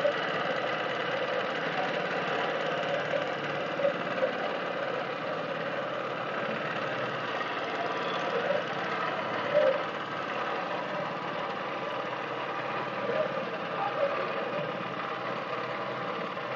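A boat's motor running steadily, with a few short knocks on top.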